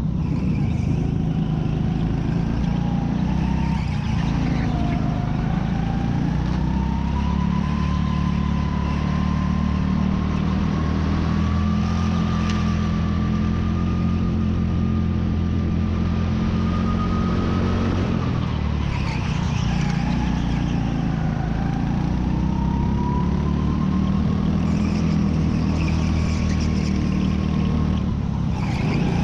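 Indoor racing go-kart's small petrol engine running hard, heard close from the kart itself. Its pitch rises and falls continuously as the driver accelerates and eases off, dropping noticeably about 4 seconds and 19 seconds in.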